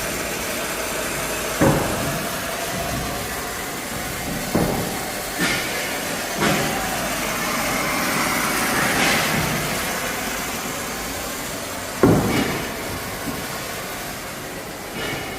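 Steady hiss of a brazing torch flame on large-bore hard copper pipe, with about five sharp knocks scattered through it, the loudest near the end.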